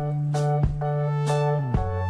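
Background music: an instrumental track with sustained keyboard chords, a bass line and a steady drum beat.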